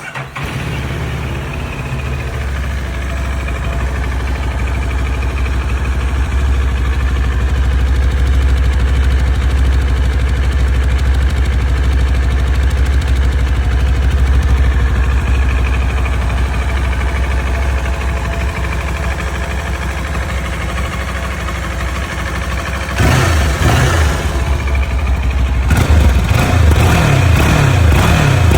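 CFMOTO 700MT motorcycle's parallel-twin engine through its stock exhaust, starting up and settling into a steady idle. About twenty-three seconds in it is revved, then blipped repeatedly near the end.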